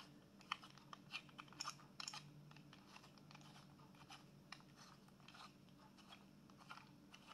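Faint scattered clicks and small crackles of a plastic camera-mount clamp being handled and adjusted, over near silence.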